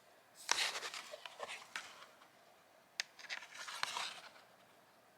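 CD packaging being handled and opened, with cardboard and plastic scraping and rustling in two spells, the first starting about half a second in and the second about three seconds in, with a few sharp clicks.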